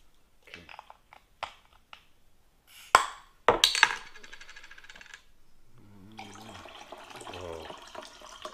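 A small glass bottle's cap is twisted open with a couple of light clicks and two sharp cracks about three seconds in, followed by a brief crackle, then blue liquid is poured from the bottle into a glass for the last few seconds.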